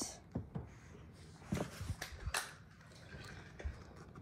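A few faint, irregular soft knocks and rustles of someone moving about and handling the phone.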